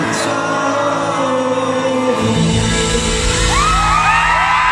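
Live band ringing out the closing chord of a rock song, with a deep low bass swelling in about two seconds in. From about three and a half seconds in, audience members start screaming and whooping in overlapping rising cries over the music.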